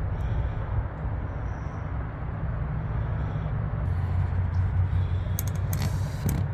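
Steady low rumble of outdoor background noise, with a short cluster of sharp clicks about five and a half seconds in.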